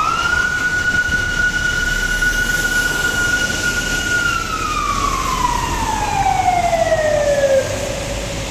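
A siren sounding one long tone: it rises to a steady high pitch, holds for about four seconds, then slowly winds down in pitch and stops a second before the end. Steady rain noise continues underneath.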